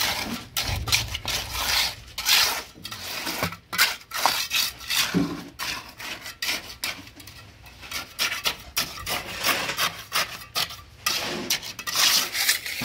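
Pointed steel mason's trowel scraping and spreading wet concrete across a stair step, in many short, irregular strokes.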